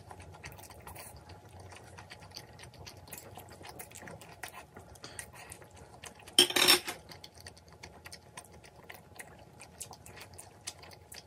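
Close-up eating sounds: steady chewing with small wet mouth clicks and light utensil touches, and one loud slurp of saucy noodles a little past the middle.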